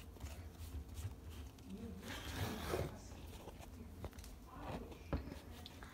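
Plastic squeeze water bottle being handled: a short rasping scrape about two seconds in, then light clicks and knocks against the counter.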